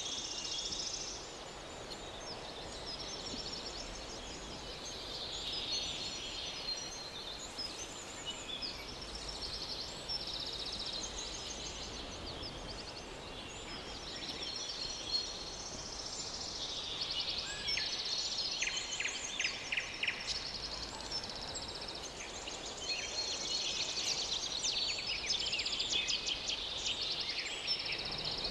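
Many overlapping high chirping and trilling animal calls, fast pulsed trains that come and go and grow busier in the second half, over a low steady background hiss.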